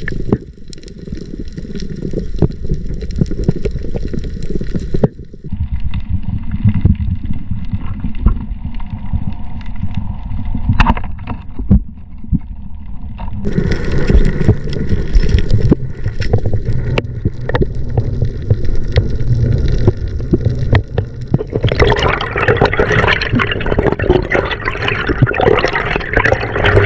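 Sea water sloshing and gurgling, with many small clicks and knocks. The sound changes abruptly about five and thirteen seconds in, and grows louder and brighter over the last five seconds.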